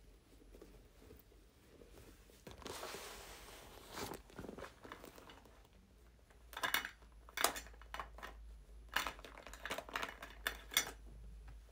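Faint handling sounds of small objects: a rustle lasting about a second and a half, then a scattered run of light clicks and taps.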